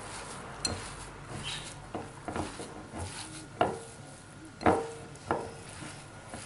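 Hands kneading damp desiccated coconut in a glass mixing bowl: a soft rustling squish, with irregular sharp knocks of the hand against the glass, the two loudest near the middle, one leaving a brief ring.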